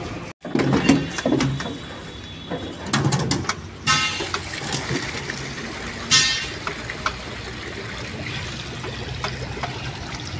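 Knocks and scrapes of a truck's metal diesel tank being shifted and stood upright on concrete, a few sharp hits in the first seconds, over steady street traffic with a short horn-like blip now and then.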